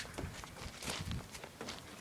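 Footsteps: irregular thuds and scuffs of shoes on the ground as someone walks and moves about.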